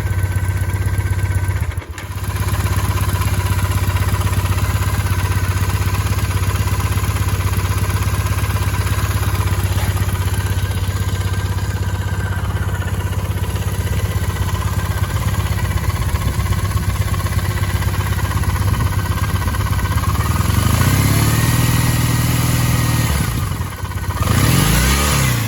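A 2008 Triumph Bonneville's parallel-twin engine idling, carrying the strange noise that its owner hears clearly at idle; a Triumph service shop called it normal. Near the end the throttle is blipped twice, the engine speed rising and falling each time.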